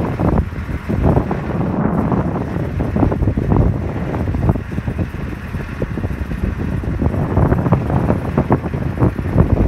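Strong wind buffeting the microphone in irregular gusts, over the steady running of heavy snow-removal machinery.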